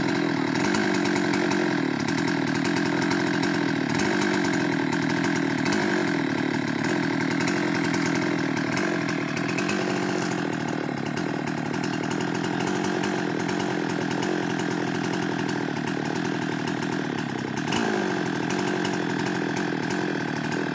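Husqvarna 390 XP two-stroke chainsaw running steadily at high revs while cutting teak wood, its pitch dipping slightly now and then as the chain bites under load.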